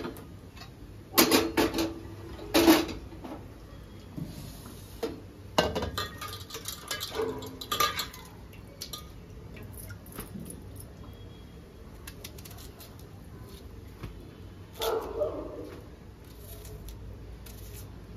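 Metal kitchen utensils clattering: a series of sharp clinks and knocks with short ringing. The loudest two come about a second and two and a half seconds in, and another ringing clatter comes near the end.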